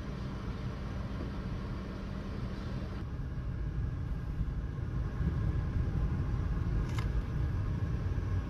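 Car engine and road rumble heard from inside the cabin: a steady low hum at first, changing abruptly about three seconds in to driving rumble that grows louder from about five seconds. A single click sounds near seven seconds.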